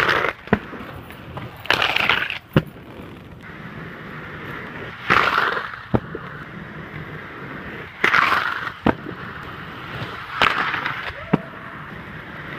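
Aggressive inline skates grinding along a concrete ledge: a short scrape, then a sharp clack as the skates land, repeated about five times.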